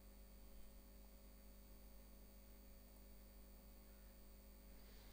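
Near silence: a faint steady hum, room tone of the recording setup.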